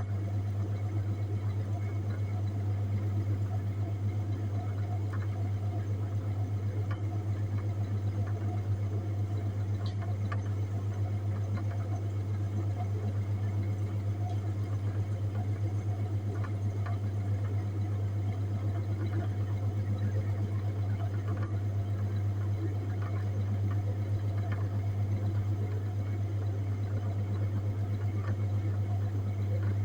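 Refrigerated display case running with a steady low hum, with a few faint ticks scattered through.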